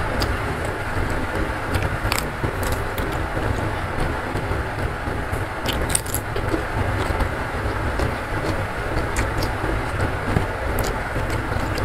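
Steady, heavy rumble of rain, with scattered crisp crunches of raw vegetables being bitten and chewed close to the microphone.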